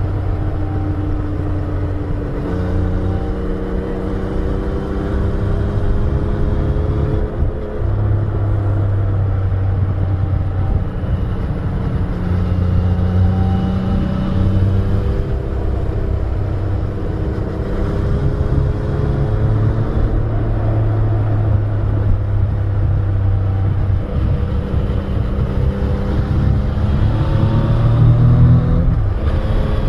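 Yamaha Tracer 900's three-cylinder engine heard from the rider's seat while riding, its pitch rising and falling as the throttle is opened and closed through the bends. The pitch climbs with a burst of throttle near the end.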